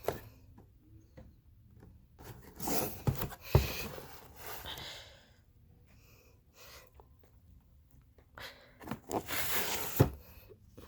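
Gemmy animated snoring Santa figure playing its snore sound: two snores about six seconds apart, each a noisy breath of a second or so ending in a sharp catch.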